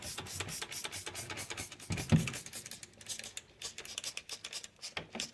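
Rapid scratchy rubbing strokes, several a second, on a plastic console cup-holder piece being cleaned, with one dull thump about two seconds in.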